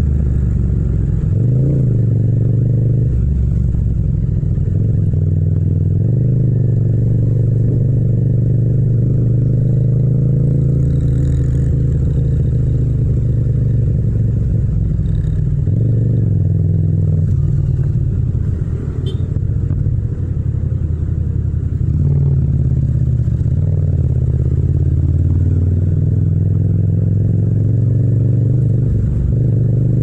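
Yamaha MT-07's 689 cc parallel-twin engine running as the bike is ridden in traffic, its pitch rising and falling as the throttle is opened and closed, with a short easing-off about two-thirds of the way through.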